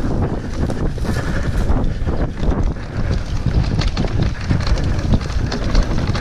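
Wind buffeting the microphone of a mountain bike's action camera during a fast descent, over the steady rumble of knobbly tyres on bumpy grass singletrack and irregular knocks and rattles from the bike and its suspension.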